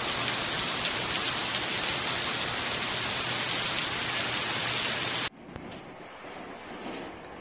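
Heavy rain pouring down, a dense steady hiss. About five seconds in it cuts off suddenly and gives way to quieter, duller rain.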